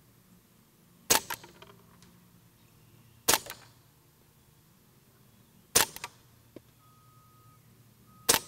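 Four quiet .22 LR shots from a Ruger 22 Charger pistol, fired about two to two and a half seconds apart.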